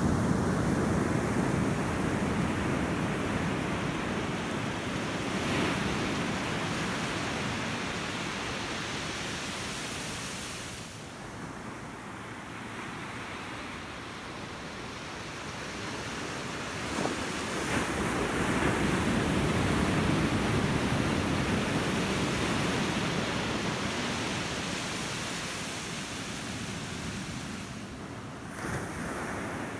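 Ocean surf: waves washing in and drawing back, a continuous rushing noise that slowly swells and fades, loudest at the start and again about two-thirds of the way through.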